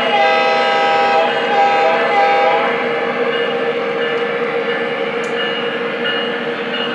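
Model diesel locomotive's onboard sound system on a Lionel Vision Line genset switcher: a recorded diesel horn sounds in a few blasts during the first two and a half seconds, over steady engine sound and the rumble of the O-gauge train rolling along the track.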